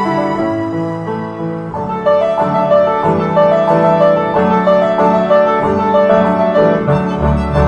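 Background music led by piano: a melody moving note by note over held lower notes.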